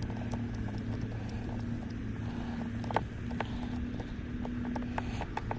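Irregular small clicks and taps of a Phillips screwdriver driving a screw into a plastic car center console armrest lid, with a sharper click about three seconds in, over a steady low hum.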